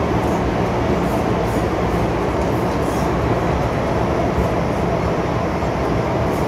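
MTR M-Train electric multiple unit running through a tunnel, heard from inside the car at the door: a steady, loud rumble of wheels and running gear.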